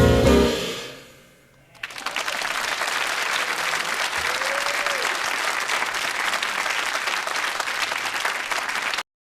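A live piano trio's last chord dies away, then the audience breaks into applause, which cuts off abruptly near the end as the recording stops.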